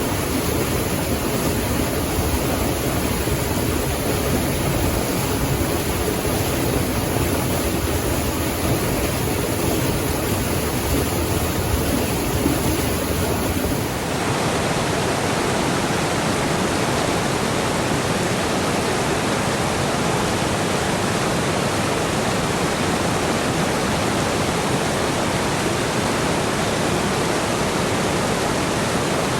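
Steady rushing of flowing water. About halfway through it changes abruptly to a brighter hiss with less deep rumble.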